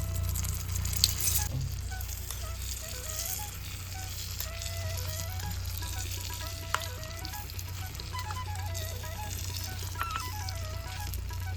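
Food sizzling in a tiny miniature-cooking pan under soft background music with a stepping melody, with a few light clicks of a utensil against the pan.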